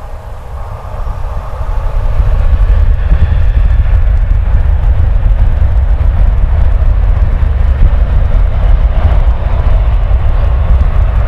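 The two CFM56-7B26 turbofan engines of a Boeing 737-800 spooling up to full takeoff thrust at the start of the takeoff roll. The jet noise swells over the first two seconds, then holds loud and steady, with a heavy low rumble under it.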